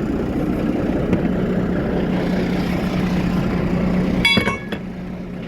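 Truck diesel engine running steadily, with one sharp metallic clank that rings briefly about four seconds in; the engine sound drops a little just after.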